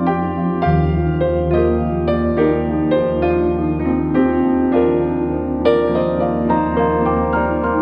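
Soft piano music: a slow run of single notes over held low bass notes, with the bass changing about half a second in.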